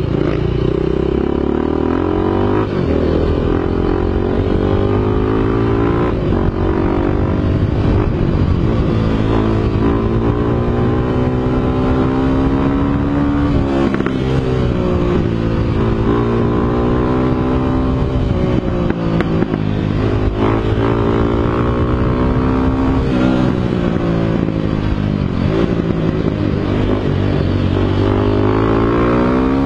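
Dirt bike engine revving up and down over and over, its pitch climbing under throttle and dropping back every few seconds.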